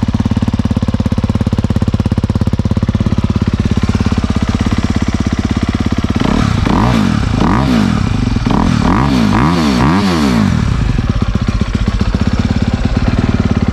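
2023 Honda CRF250R's fuel-injected single-cylinder four-stroke engine idling while still cold from a cold start. About six seconds in it is revved in several quick throttle blips that rise and fall, then it settles back to idle.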